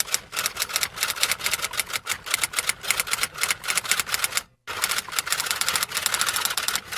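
Fast, uneven clatter of typing keys, many clicks a second. It plays as two runs, with a short break about four and a half seconds in.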